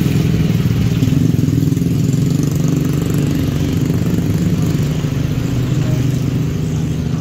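An engine idling steadily, a low even drone that does not change.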